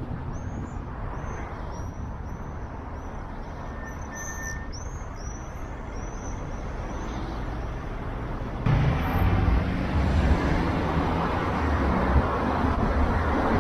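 Steady road and traffic noise from a car driving through city traffic, with faint high chirps in the first few seconds. About two-thirds of the way in it turns suddenly louder with a deep rumble.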